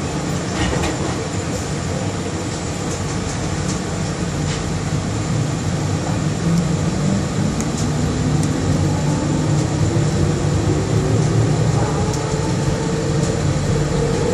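Bombardier Innovia APM 100 rubber-tyred people mover running, heard from inside the car: a steady rumble with a motor whine that rises in pitch as the train picks up speed.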